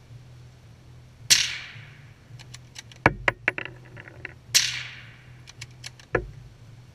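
Two shots from a suppressed .22 WMR rifle, a second and a half and about three seconds apart. Each is a sharp crack with a short fading tail, the supersonic bullet's crack carrying even though the muzzle blast is suppressed. Several sharp clicks and knocks come between and after the shots.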